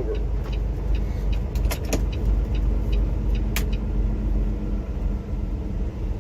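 Semi truck's diesel engine and road noise heard from inside the cab: a steady low rumble, with a few sharp clicks about two seconds and three and a half seconds in.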